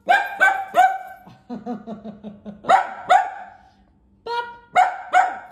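A small wire-haired dachshund barking in sharp, high yaps, about eight in three quick groups, with a lower-pitched grumble between the first two groups. It is barking at a tennis ball lying on the floor in front of it.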